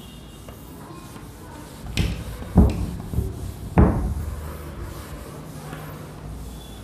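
A cloth duster rubbed across a whiteboard to erase it, with four dull thumps about two to four seconds in.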